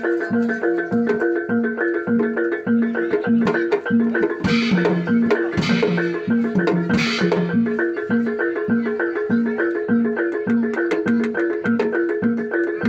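Javanese gamelan music accompanying a barongan dance: metallophones such as bonang and saron strike a steady, repeating pattern of notes. Three brief hissy, splashy bursts come between about four and seven seconds in.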